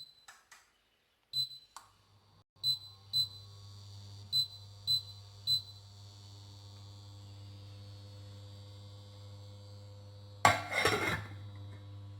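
Button beeps from an electric appliance being set to boil water, about seven short beeps in the first few seconds, then the appliance's steady electrical hum as it runs. About ten seconds in, a short loud noisy burst.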